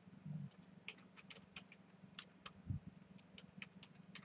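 Soft, irregular key clicks of typing on a computer keyboard, over a faint steady low hum. A single dull thump comes about two and a half seconds in.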